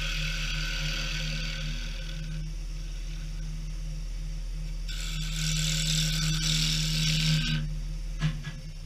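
Wood lathe running with a steady hum while a hand-held turning tool cuts a small spinning wooden workpiece, giving a hiss of shaving in two spells, the second louder. A sharp knock comes just after the cutting stops.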